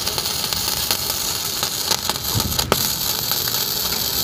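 Gasless flux-core MIG welding arc from a Protech MK250A welder laying a bead on thin 0.8 mm box-section steel: a steady crackling sizzle, with one sharper crack a little over halfway. The power is turned down a little so the thin steel doesn't burn through at the end of the bead.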